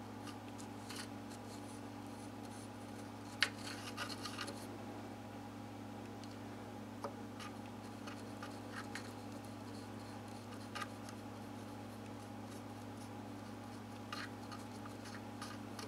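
Faint bench handling sounds: light scratches and a few small sharp clicks as glue is spread on a guitar's neck joint and shim, over a steady low hum.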